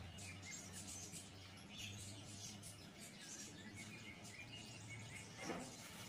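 Budgerigars chirping and chattering softly in short, scattered chirps over a low steady hum. There is a single brief sharp knock about five and a half seconds in.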